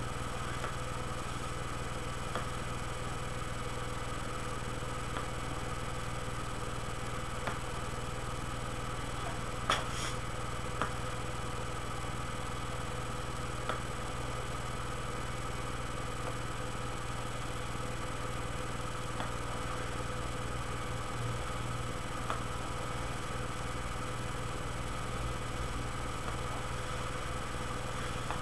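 A steady mechanical hum, with a few faint clicks scattered through it, the clearest about ten seconds in.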